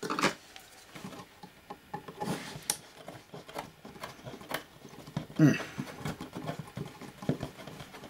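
Screwdriver turning small painted screws out of a metal aircraft control panel: scattered light clicks and scrapes as the tip works the screw heads and the panel is handled. A short vocal murmur about five seconds in is the loudest moment.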